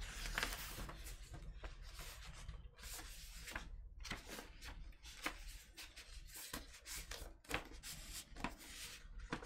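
Paper inner sleeve of a vinyl LP rustling and scraping in a run of short strokes as the record is worked out of it.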